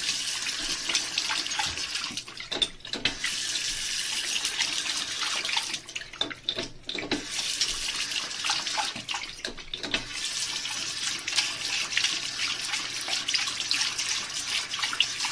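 Tap water running from a bathroom sink faucet and splashing into the basin. The splashing dips briefly a few times.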